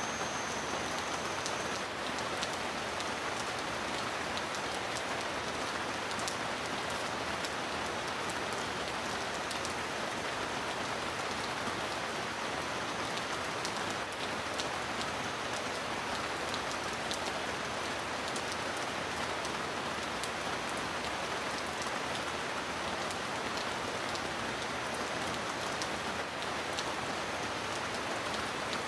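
Steady heavy rain falling on a surface, an even wash of sound sprinkled with scattered individual drop ticks.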